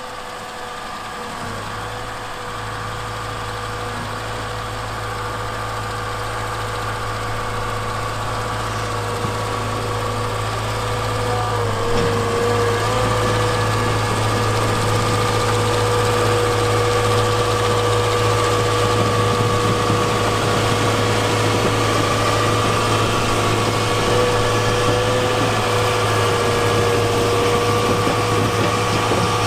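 Diesel engine of a Volvo EWR150E rail-road wheel excavator running as it drives a rotating snow sweeper broom, with a steady whine over the engine hum. It grows louder through the first dozen seconds, then holds steady.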